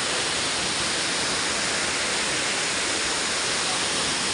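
Waterfall pouring down a rock face into a plunge pool: a steady, even rush of falling water.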